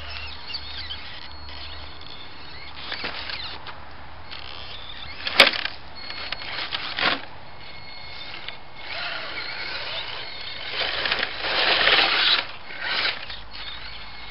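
RC scale crawler truck's electric motor and gears whining in short bursts as it drives over dirt, louder near the end. A single sharp knock about five seconds in.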